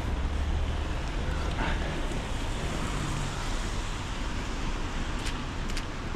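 Street traffic noise: a steady low rumble of passing cars with wind on the microphone, and a couple of light clicks near the end.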